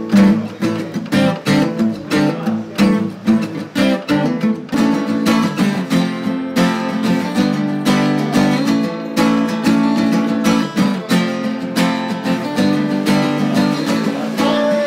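Two acoustic guitars strummed together in a steady rhythm, playing an instrumental passage of a song with no singing.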